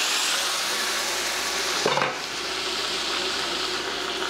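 Flour-coated chicken thighs frying skin-side down in hot olive oil in a pan, a steady sizzle. A brief knock about two seconds in.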